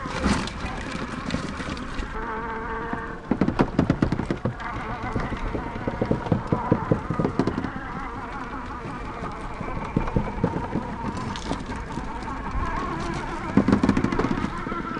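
Buzzing whine of a 1/10-scale Traxxas TRX-4 RC crawler's electric motor and gearbox as it drives, the pitch shifting with throttle. Bursts of rapid clattering knocks come about three seconds in, around six to seven seconds, and near the end.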